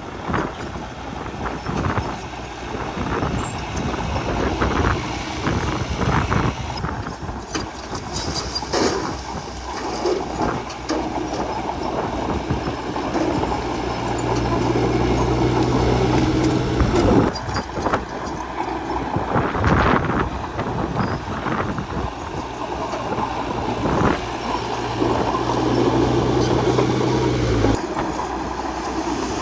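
Bulldozer working: its diesel engine runs under load while the steel tracks clatter and clank. A low steady engine tone holds through the second half and drops away suddenly near the end.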